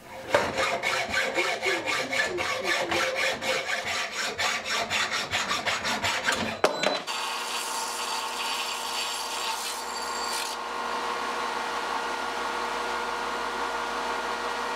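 Quick, even hand-sawing strokes, about four a second, for the first seven seconds. Then a bench belt and disc sander runs steadily while the end of a steel threaded rod is ground on its belt, the grinding hiss dropping away about three seconds later as the sander runs on.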